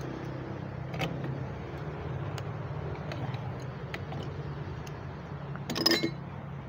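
Pipe wrench working the threaded union on a water pump's pipe: a few light metal clicks, then a louder, ringing metal clatter near the end. A steady low hum runs underneath.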